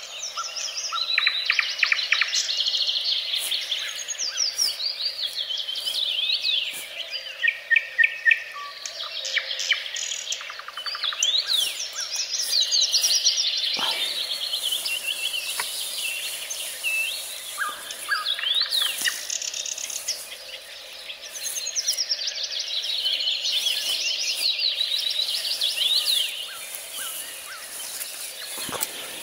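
A songbird singing a long, varied song of rapid trills, chirps and whistles with only brief pauses, against a faint steady background and a few short clicks.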